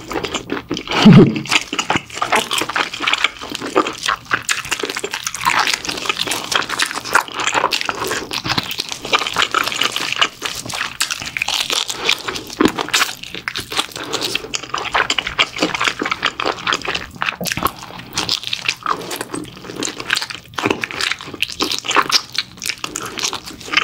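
A person eating mala-sauced pig's trotters (jokbal) close to the microphone: continuous chewing with many quick wet smacks and clicks, and one short, louder low sound about a second in.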